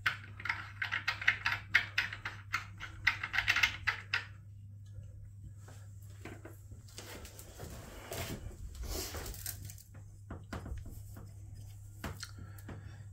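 Quick run of light metallic clicks and taps as a shower fitting is threaded on by hand at a brass wall plate, followed about seven seconds in by a few seconds of rustling handling noise as the shower bar is brought to the plate.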